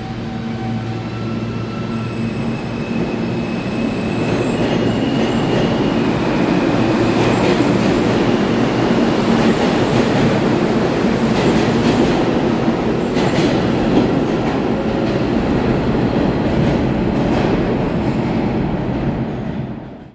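R160 subway train pulling out of the station, its traction motors whining in rising tones as it gathers speed. The rumble of the passing cars swells, with the wheels clicking over rail joints, then fades near the end.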